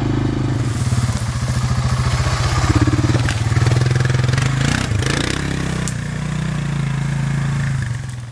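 ATV (four-wheeler) engine running as the machine is ridden over rough ground and through brush, with a fast, even engine pulse through the middle. It cuts off suddenly at the very end.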